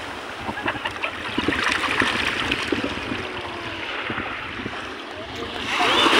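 Small waves lapping and trickling in shallow water at the edge of a sandy beach, with a larger wave breaking and rushing up the sand near the end, the loudest part.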